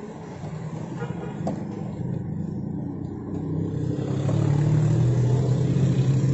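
A motor vehicle's engine running steadily, growing louder about four seconds in.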